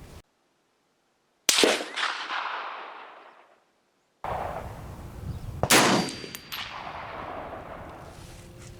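Two rifle shots from a National Match M1A, a semi-automatic .308, about four seconds apart, each followed by a long echo that fades over about two seconds. A short metallic ping follows just after the second shot.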